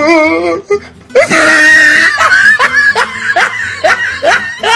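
A woman's voice: giggling that fades out, then about a second in a loud scream, followed by short, rapidly repeated rising cries. The scream is staged, a faked cry of pain meant to bring someone running.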